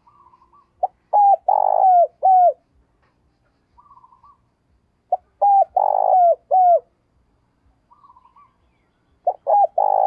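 Spotted dove singing its cooing song three times, about four seconds apart. Each phrase is a run of four or five short coos, preceded by a soft quavering note. This is the decoy dove's call used to lure wild spotted doves.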